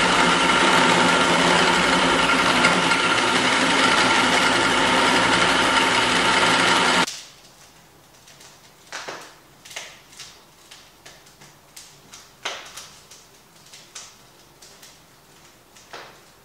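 Cordless drill boring a 1-inch hole through a cast-iron Dana 60 steering knuckle. The motor runs steadily under load for about seven seconds, then stops abruptly, leaving a few faint scattered clicks.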